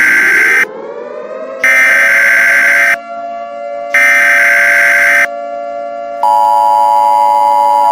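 Emergency Alert System alert opening: three bursts of the SAME digital data header, each a little over a second long, over a siren that winds up and then holds a steady pitch. About six seconds in, the steady two-tone EAS attention signal begins.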